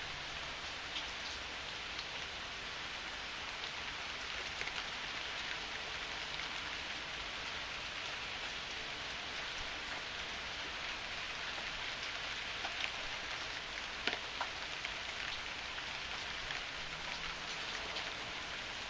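Heavy rain falling steadily, a dense hiss with scattered sharper drop impacts, a few of them clustered about two-thirds of the way in.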